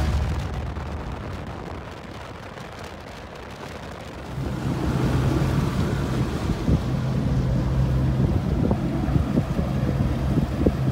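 Boat under way: a motor's steady low hum with wind buffeting the microphone and water rushing past the hull. It all gets louder about four seconds in, when the motor's hum comes in.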